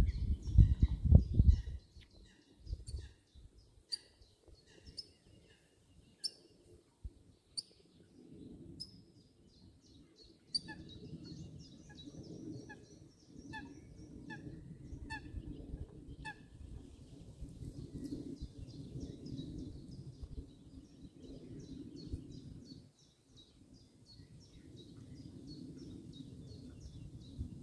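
Several wild birds calling and singing in a wetland: short high chirps and whistles throughout, with a run of evenly spaced notes through the middle. A loud low rumble opens the sound, and a softer steady low rumble runs under the calls from about a third of the way in.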